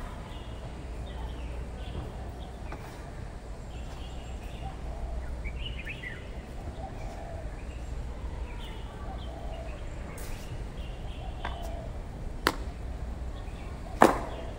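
Steady outdoor background noise with birds chirping faintly, broken near the end by two sharp smacks from a kung fu practitioner's movements, about a second and a half apart, the second the loudest.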